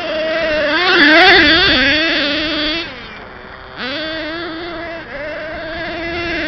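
Kyosho Giga Crusher RC monster truck's nitro engine running at high revs, a high whine that surges and wavers in pitch about a second in, drops away for about a second near the middle, then picks back up with a quick rise in pitch and runs on steadily.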